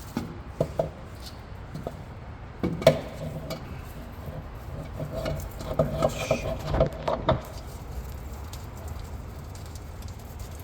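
Scattered clicks and knocks of hands handling parts and tools at a workbench. The sharpest knock comes about three seconds in, and a busier run of knocks and rattles comes between about five and seven and a half seconds.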